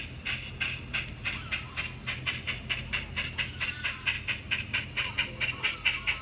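Steam locomotive exhaust chuffing as number 5 moves off, the beats quickening to about five a second, over a low steady hum. Bird chirps sound in the background.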